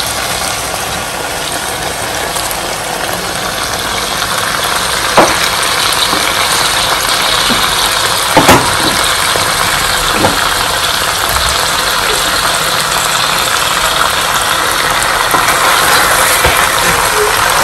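Chicken and butternut squash curry sizzling in a hot frying pan as spinach leaves are added, the sizzle slowly growing louder. A few sharp knocks sound about halfway through.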